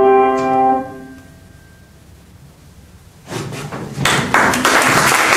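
Grand piano's final chord struck and left to ring, dying away over about a second. After a short hush, audience applause starts about three seconds in and swells to full clapping.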